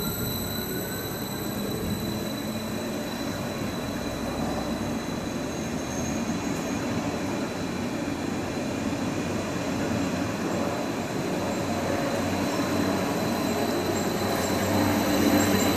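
Stadler Flirt 3 (BR 429) electric multiple unit pulling out past the platform, wheels rolling on the rails with a steady high whine from its electrics. The pitch of one whine rises at the start as the train picks up speed. The running noise grows louder toward the end as the later cars pass.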